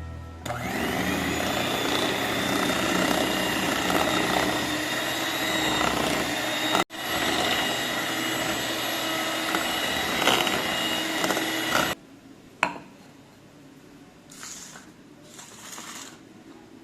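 Electric mixer running steadily as it beats a cream cheese filling, with a brief break about seven seconds in; it stops about twelve seconds in, followed by faint knocks and scraping.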